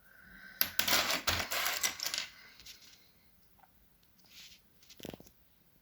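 Small wooden jigsaw puzzle pieces clattering against one another as they are handled, a dense rattle of clicks for about a second and a half, then a few scattered clicks and a short knock near the end.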